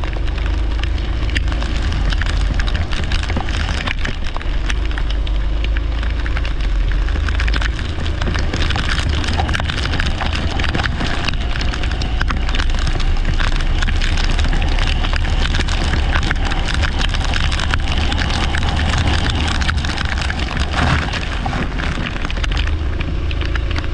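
Leisure kart running on a wet track: a steady wash of rain and spray noise full of small crackles and clicks, with a heavy low rumble of wind on the microphone and the engine's note faint beneath it, rising and falling.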